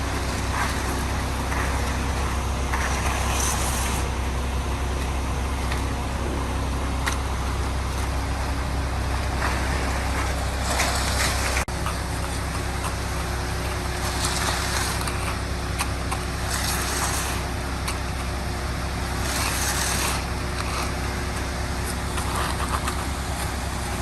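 Concrete mixer truck's diesel engine running steadily with its drum turning during a pour, a continuous low rumble with short bursts of hiss every few seconds.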